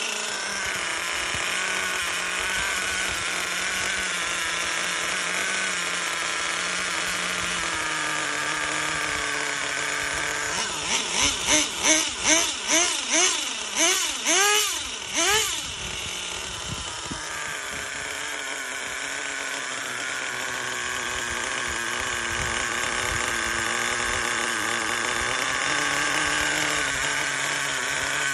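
Small nitro (glow) engine of a 1/10 Kyosho on-road RC car idling steadily, then revved in a quick run of about nine throttle blips, each a rising and falling whine, from about ten to fifteen seconds in, before settling back to idle. The engine is on a bench test run after being serviced for seizing, with a new glow plug fitted.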